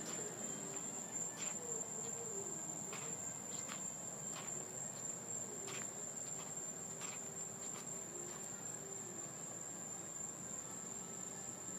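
Insects trilling in one steady, unbroken high-pitched tone, with light clicks or taps every second or so.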